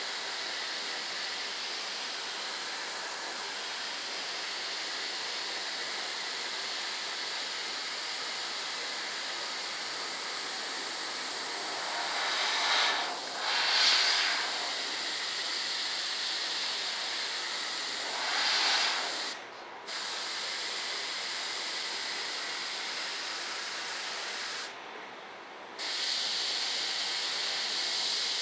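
Airbrush spraying black paint, its air hissing steadily. It swells louder twice in the middle and drops away briefly twice in the second half.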